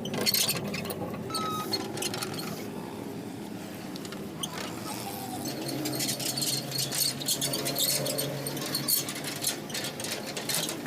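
Metal parts and hand tools clinking and tapping in a repeated series of light knocks, busiest in the second half, with a faint steady hum underneath.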